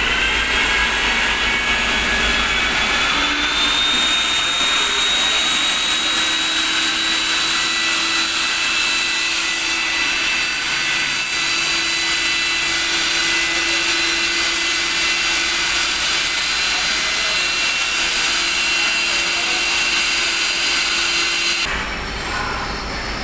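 Two-stage vacuum blower of a coolant sump cleaner running, a loud steady rushing with a high whine that rises in pitch over the first few seconds as it spins up from switch-on. It pulls a vacuum that sucks coolant and metal chips up the hose. The sound drops suddenly near the end.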